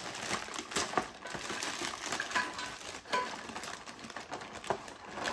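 A clear plastic packaging bag crinkling and crackling as hands open it and pull out a rubber toilet seal, in many small irregular crackles.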